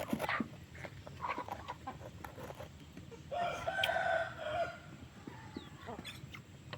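A rooster crows once, starting a little before halfway and lasting about a second and a half, over a flock of hens clucking with scattered short calls.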